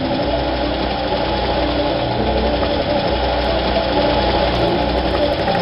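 Dubbed truck engine sound effect: a heavy engine running steadily with a deep low rumble that swells and dips about once a second.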